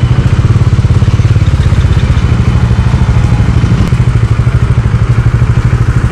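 Bajaj Dominar 400's single-cylinder engine running at low revs, with a rapid, even pulse, as the motorcycle creeps slowly forward.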